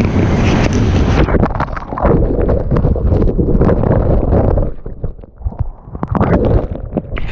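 Wind buffeting the microphone: a loud, rough rumble with frequent sharp knocks that drops away for about a second near the five-second mark, then returns.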